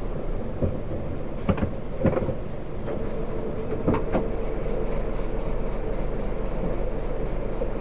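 Hino 500 dump truck's diesel engine idling, heard from inside the cab, with a handful of sharp clunks and knocks in the first half as the gear lever is worked.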